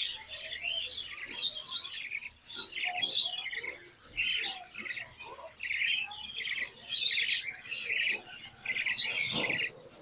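Young budgerigars chirping rapidly and almost without pause: the begging calls of hungry chicks waiting to be hand-fed. A spoon stirring feeding formula in a small cup makes faint sounds underneath.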